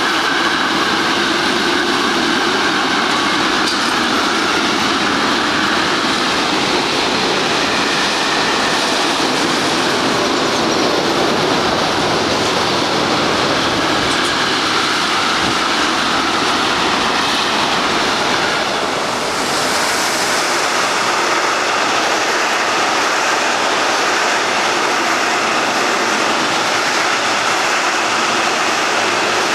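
Freight train wagons rolling past at close range: a loud, steady rumble of wheels on rail.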